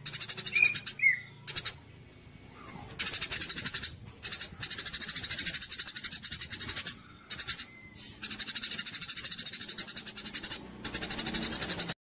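Songbird calls from a masteran training recording: rapid, high, buzzy chattering trills in repeated bursts of a second or more with short pauses, and a couple of brief rising squeaks early in the first pause. The audio cuts off abruptly near the end.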